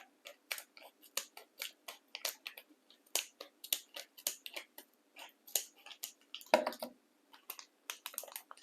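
Plastic packaging on a tub of slime being cut and worked open, giving irregular crinkling clicks several times a second, with one louder knock about six and a half seconds in.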